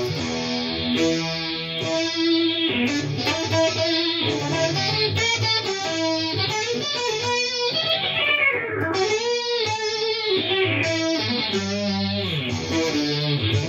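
Electric guitar played through a Digitech Dirty Robot synth pedal: a run of synth-voiced notes, each starting bright and sweeping downward in tone as the pedal's filter closes.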